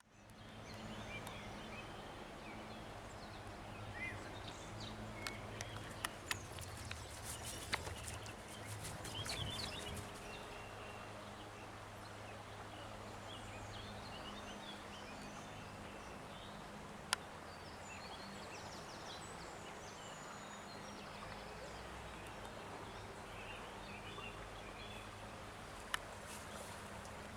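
Faint outdoor background: the steady rush of a brook with small birds chirping over it, a low steady hum, and a few sharp clicks.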